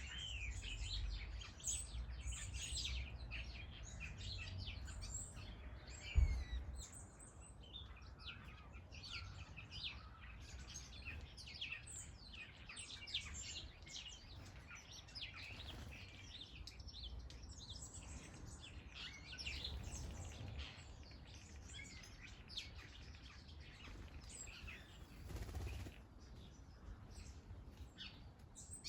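Small garden birds chirping and calling in many short, overlapping notes, over a steady low rumble, with a single sharp thump about six seconds in.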